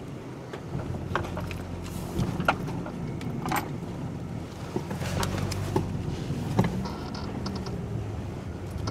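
A car's engine running at low speed as the car drives off, heard from inside the cabin, with scattered clicks and light knocks.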